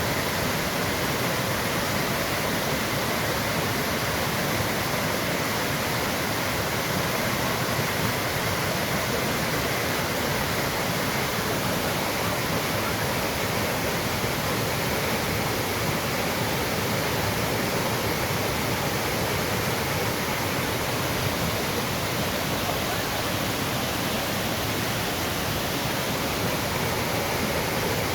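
Waterfall: water pouring and splashing in a continuous, steady rush.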